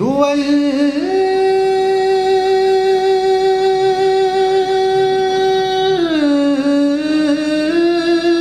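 A man singing an Urdu naat unaccompanied, a single voice: he comes in at the start, holds one long steady note for about five seconds, then drops lower into ornamented, wavering phrases.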